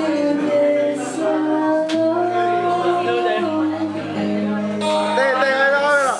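A woman singing live into a microphone over acoustic guitar, holding long notes above steady strummed chords.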